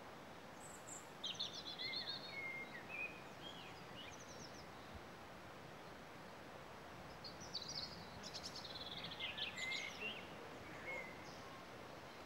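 A songbird sings two phrases of quick high notes and trills. The first comes about half a second in, the second about seven seconds in, over a steady faint background hiss.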